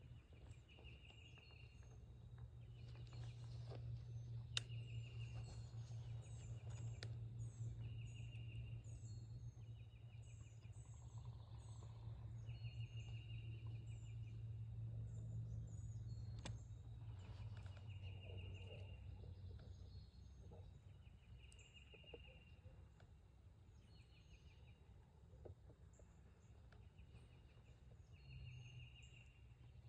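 Dawn birdsong: one songbird repeats a short trill about every two seconds while other birds chirp higher and faster, over a low steady rumble.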